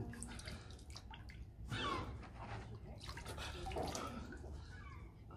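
Water splashing and dripping in a plastic tub as a face dips into it and lifts out again during push-ups, with louder splashes about two and four seconds in.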